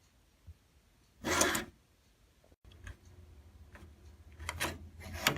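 Doorknob handle and latch hardware being handled and fitted: a short rubbing scrape, then several light clicks and scrapes near the end.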